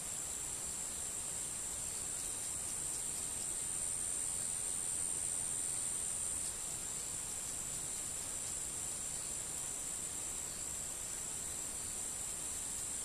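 Steady high-pitched insect chorus, a continuous buzzing drone; one strand of it stops about halfway through.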